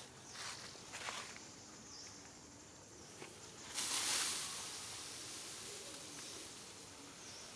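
Forest ambience with a steady high insect drone, brief rustles in the first second and a louder hissing rush of noise about four seconds in that fades over about a second. No calls from the monkeys are heard.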